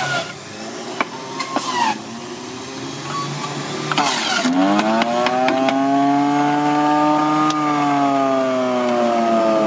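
Electric juicer with a clatter about four seconds in as its motor starts, then a steady whine that climbs in pitch for a few seconds and slowly sags while white bitter melon is pressed down the feed chute. Scattered light clicks and knocks come before it.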